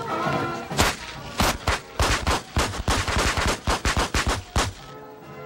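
A rapid, irregular string of about twenty sharp bangs, starting about a second in, crowding together in the middle and stopping suddenly near the end.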